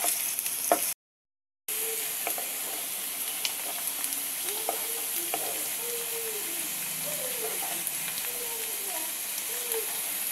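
Finely chopped onion sizzling in hot mustard oil in a kadhai, stirred with a wooden spatula that gives small scrapes and clicks against the pan; the onion is being sautéed until just turning pink. The sound cuts out briefly about a second in.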